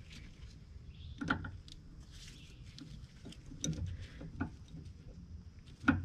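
Scattered small clicks and knocks of brass propane pipe fittings being handled and tightened into place, the sharpest knock near the end.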